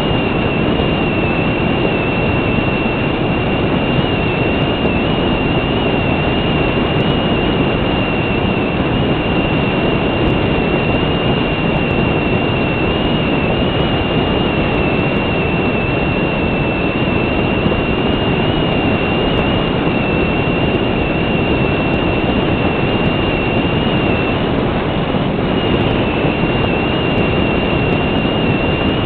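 Onboard sound of a Multiplex Cularis electric RC motor glider in flight: a loud, steady rush of airflow and motor noise with a constant high whine that wavers slightly.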